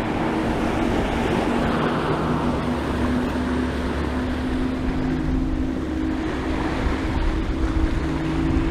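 Ocean surf washing against the rocks of a jetty, with wind buffeting the microphone and a steady engine drone underneath.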